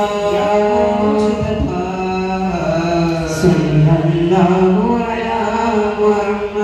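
Voices singing a daff muttu song, an Arabic devotional chant sung in unison, in a long melodic line that rises and falls, amplified through microphones and loudspeakers.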